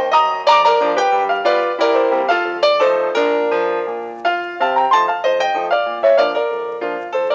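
Piano music: a lively run of quickly struck notes and chords, several per second.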